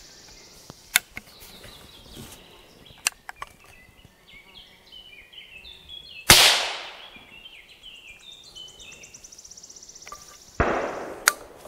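Percussion cap on a caplock muzzleloading rifle snapping with one sharp crack about six seconds in while the black powder charge fails to fire: a misfire. A few light metallic clicks come before it, and a second loud crack follows about four seconds later.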